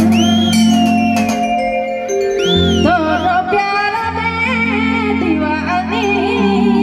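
Live, amplified music: a woman singing into a microphone over long held chords and bass from a Roland XPS-30 keyboard, her voice gliding up high near the start and again about two and a half seconds in.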